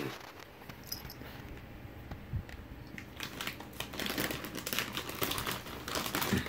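Crinkling of a tortilla chip bag being handled, growing into dense crackling from about three seconds in.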